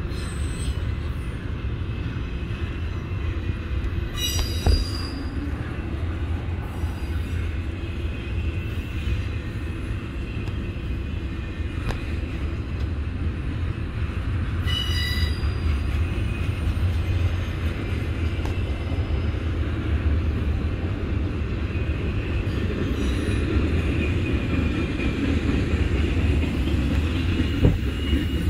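Double-stack intermodal freight train of container well cars rolling past with a steady rumble of wheels on rail. Brief high wheel squeals come about four and fifteen seconds in, and sharp knocks sound a few seconds in and near the end.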